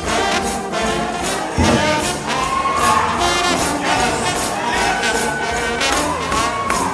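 A trombone-led gospel shout band playing loudly over a driving beat. The lead horn slides up and down between notes several times.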